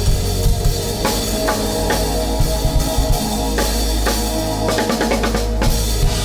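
Experimental music: drum hits about every half second over sustained deep bass tones and layered droning chords, with a quick run of strikes near the end.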